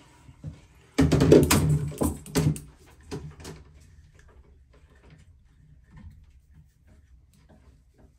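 Metal clattering and clicking as a flexible stainless shower hose and its fitting are handled and hand-threaded onto a shower-arm mount. A dense burst of knocks lasts about two seconds near the start, then a few lighter clicks and faint ticks follow.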